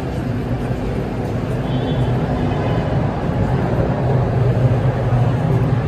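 Street traffic: a motor vehicle's engine running close by, a steady low hum that grows louder in the second half.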